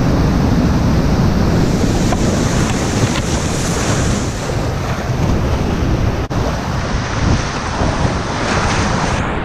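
Loud, steady rush of a flooded whitewater river around a kayak running its rapids, with water and wind buffeting the action-camera microphone.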